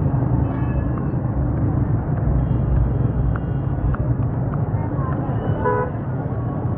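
Street ambience: a steady low rumble of passing traffic with indistinct voices of people around.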